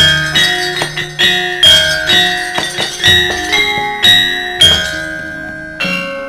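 Javanese gamelan playing: bronze metallophones struck in a melody of single ringing notes, two or three a second. The strikes thin out toward the end, and the last notes are left to ring.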